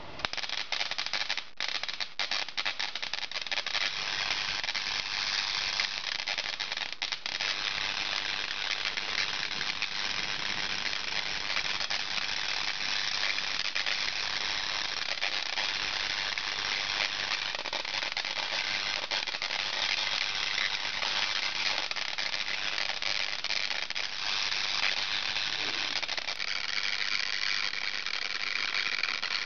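Spark gap Tesla coil switched on and running: a loud, harsh, rapid crackling buzz of the spark gap firing. It stutters a few times in the first couple of seconds, then runs steadily, sounding thinner and higher from about 26 seconds in.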